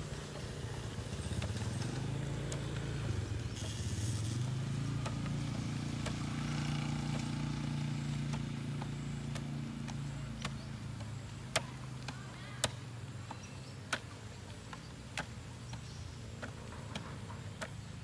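A motor vehicle's engine runs with a low hum that rises about a second in, holds, and fades out after about ten seconds. Then a handful of sharp slaps, roughly one a second, as hands smack against a rugby ball.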